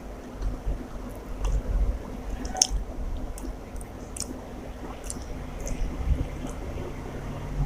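Close-miked chewing of a mouthful of rice and chicken curry: wet, squishy mouth sounds with many small sharp clicks scattered throughout.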